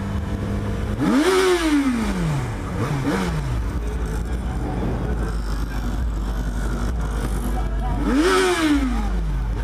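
Yamaha XJ6's inline-four engine idling, then revved twice, about seven seconds apart. Each rev climbs quickly and falls back slowly and is followed by a smaller blip of the throttle.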